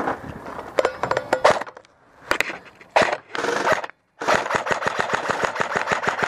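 Airsoft electric rifle (AEG) firing: a few short bursts of rapid clicking shots, then a long fast full-auto string beginning about four seconds in.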